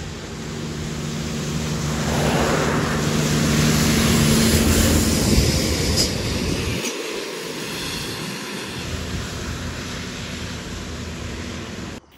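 Diesel trucks passing close on a wet road: a steady engine drone with tyre hiss that swells to a peak about four to five seconds in, then fades as they go by. The sound cuts off suddenly near the end.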